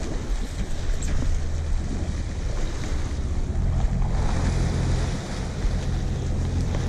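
Fishing boat's engine running with a steady low hum, its note a little stronger from about halfway, under wind buffeting the microphone and the rush of sea water alongside the hull.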